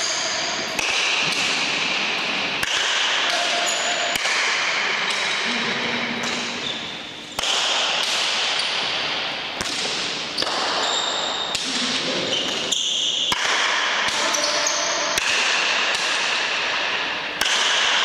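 Rubber pelota ball struck with wooden paletas and slamming off the front wall and floor in a running rally, a string of sharp cracks echoing around the indoor court, with short squeaks of shoes on the polished floor.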